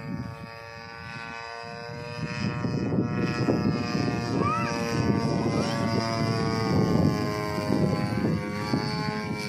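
Homemade RC plane's grass-cutter engine running at a steady buzzing pitch in flight overhead, with a low rumbling noise that grows louder from about two seconds in and eases near the end.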